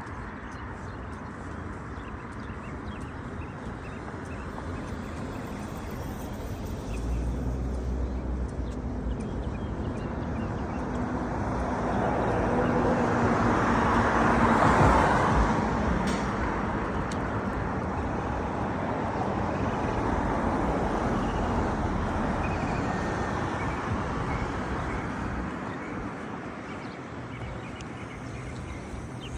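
A road vehicle passing by: a steady rush of engine and tyre noise that builds to its loudest about halfway, then fades, followed by a smaller second swell.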